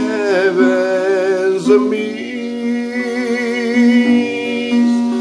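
A man sings a long held note with vibrato over his own acoustic guitar accompaniment; his voice stops about two seconds in and the guitar plays on alone, its notes ringing steadily.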